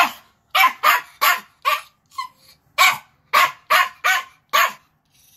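Pomeranian barking: a rapid run of about ten short, sharp barks, roughly two a second, one of them fainter, stopping shortly before the end.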